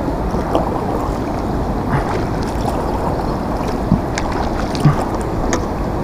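Steady wind noise on the microphone aboard a plastic kayak, with a few dull knocks about four and five seconds in.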